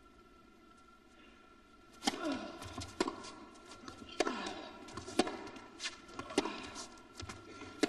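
Tennis ball struck by rackets and bouncing on an indoor court: sharp pops roughly once a second, starting about two seconds in, with short falling squeaks after a couple of them.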